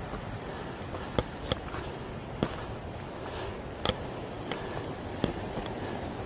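Mountain bike rolling over a rough trail: a steady rush of tyre and wind noise, broken by sharp, irregular knocks and clacks as the bike jolts, about eight in all.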